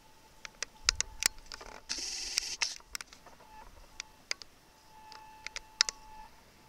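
Handling noise from a handheld camera: a scatter of sharp clicks and ticks, with a short rasping whirr about two seconds in, over a faint steady electronic tone.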